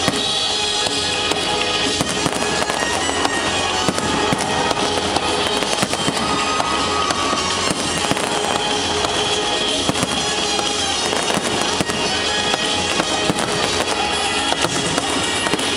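Fireworks display: aerial shells bursting and crackling in quick succession, with music playing throughout.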